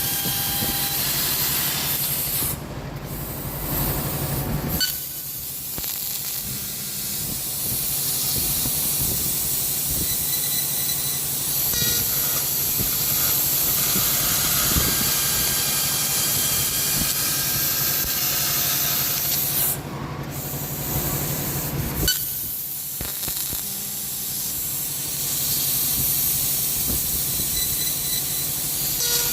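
12 kW fiber laser cutting 20 mm plate: a steady loud hiss of the cutting gas jet and spraying melt, over a low machine hum. The hiss stops briefly twice, a few seconds in and again at around twenty seconds.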